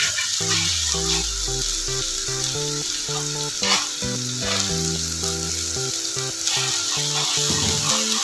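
Fish masala sizzling and frying on a flat griddle (tawa), with a metal spatula scraping and stirring it in short strokes. A melodic background music track with a bass line plays throughout.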